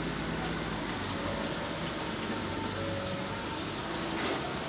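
Steady sizzling with light crackles of food cooking over high heat.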